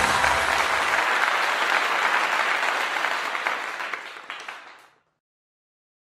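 Audience applauding, fading away and stopping about five seconds in, with the tail of the closing theme music under the first second.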